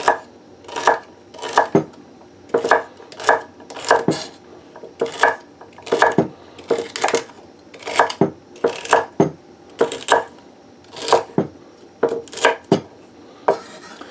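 Large kitchen knife chopping celery on a wooden butcher-block cutting board: a run of sharp knocks, one or two a second, each stroke going through the stalk and striking the board. It stops shortly before the end.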